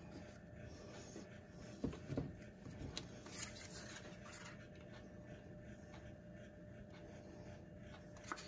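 Faint handling of small mixing cups over an epoxy board: a few soft knocks and rubs about two seconds in and again a second later, and a short click near the end, over a faint steady hum.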